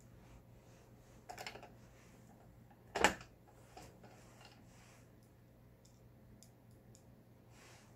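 Plastic cover of a Lion 1004 household sewing machine being handled and fitted back on: a few light clicks and rattles, with one sharp knock about three seconds in.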